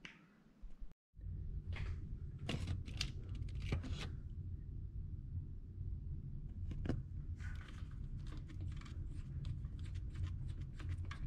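Scattered clicks and light rattles of hands working on parts in a car's engine bay, over a steady low hum.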